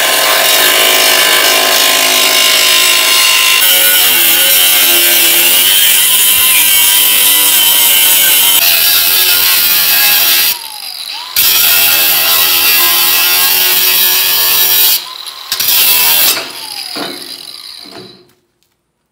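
Cordless angle grinder with a cutoff wheel cutting through a steel truck frame rail, a loud steady high whine. It stops briefly about ten seconds in and again around fifteen seconds, each time the wheel dropping in pitch, then starts again. Near the end it is released and spins down as the cut is finished.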